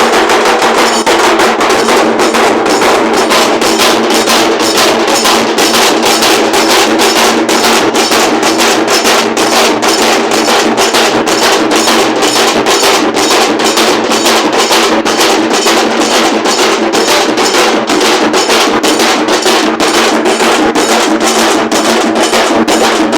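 A group of large dhol drums playing a loud, fast, steady beat without a break.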